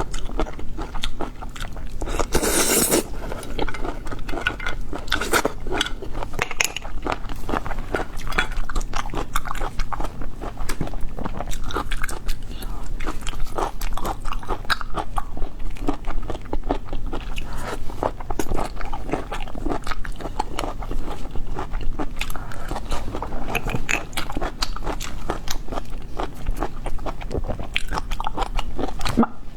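Close-miked eating of boiled cockles: wet chewing, smacking and biting with many small irregular clicks, and a brief louder burst of noise about two and a half seconds in.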